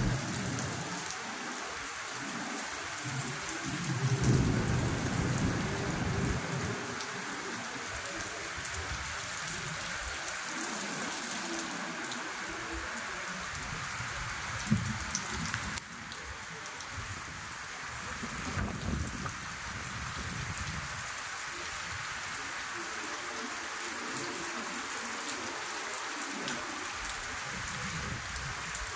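Steady heavy rain falling, a dense hiss of drops on surfaces, with deep rolls of thunder rumbling underneath about four seconds in and again around the nineteen-second mark.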